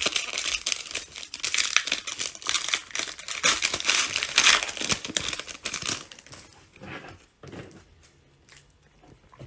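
Foil wrapper of a Classics football card pack being torn open and crinkled by hand: a dense crackling for about six seconds, then a couple of faint rustles as the cards are slid out.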